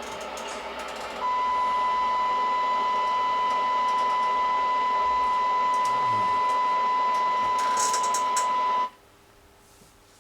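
Radio receiver's audio output: hiss, then about a second in a steady single-pitch test tone over the hiss, the kind of modulated test signal used to check receiver sensitivity. Both cut off abruptly near the end.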